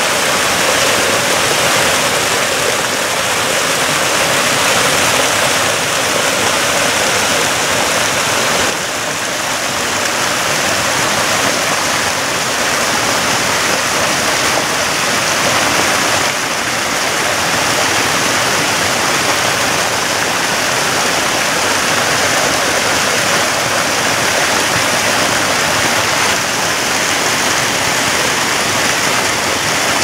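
Mountain stream running: a steady, loud rush of water spilling over rocks and down a small concrete chute. The level dips slightly about nine seconds in and again around sixteen seconds.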